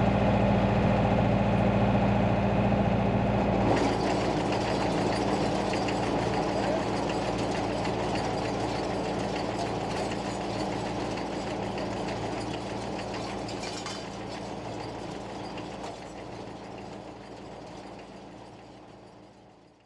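An engine running steadily, likely the tractor powering the baler; it gradually fades out toward the end.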